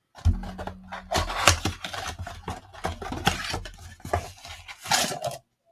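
Hands opening a retail cardboard blaster box of trading cards and handling the packs inside: a quick run of taps, clicks and rustling.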